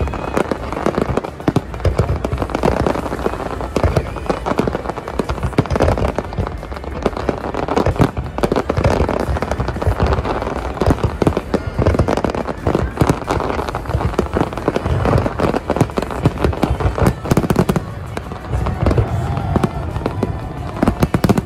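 A big fireworks display in full swing: many bursts going off in quick, overlapping succession, a continuous barrage of bangs and crackles with no pause.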